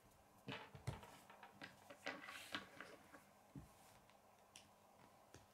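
Faint clicks and plastic rattles of Kid K'nex pieces being picked up and fitted together, a quick cluster in the first half, then a few single clicks.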